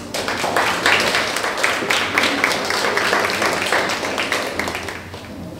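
Audience applauding in a large room, many people clapping. It starts abruptly and dies away over about five seconds.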